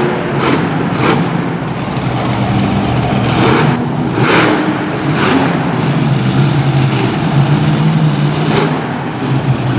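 Krazy Train monster truck's supercharged V8 running with a steady drone, broken by several short surges of throttle.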